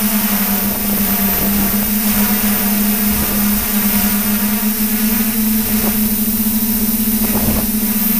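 Multirotor drone's electric motors and propellers humming steadily, heard from a camera on board the drone, with a held buzzing tone that shifts slightly in pitch as the motors adjust speed.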